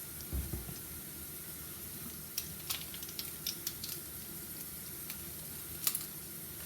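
Steady sizzling hiss from a pot of rice cooking on the stove, with a dull thump about half a second in and a few light clicks of utensils.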